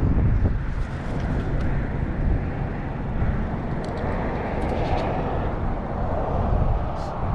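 Wind buffeting the microphone of a handlebar-mounted camera, with a car passing on the highway alongside; the traffic hiss swells a little around the middle.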